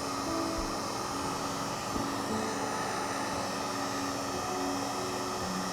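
Handheld hot-air blower running steadily, a continuous rushing whir, as it heats vinyl skin so the vinyl shrinks and grips around a curved laptop corner.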